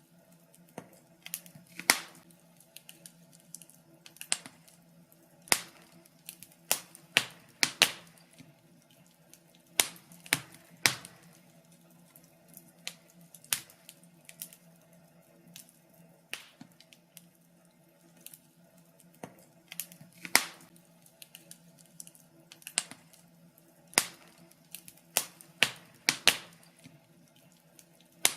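Wood fire crackling: irregular sharp pops and snaps, some in quick clusters, over a faint steady low hum.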